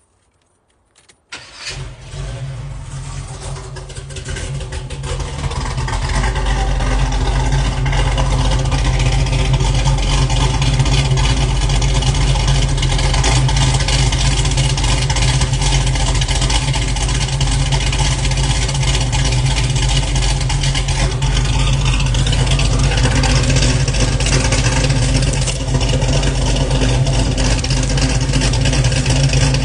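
Car engine starting up about a second in, its exhaust building over a few seconds into a steady, loud idle through a freshly replaced X-pipe exhaust.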